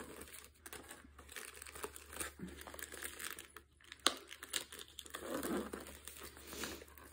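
Plastic shrink-wrap film crinkling and tearing as a knife slits it and fingers peel it off a rigid cardboard chocolate box: irregular crackles, with one sharp click about four seconds in.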